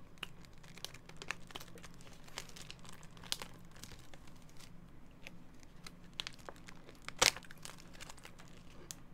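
Scattered small clicks and crinkles of a plastic container being handled close to the microphone, with one sharper, louder click about seven seconds in.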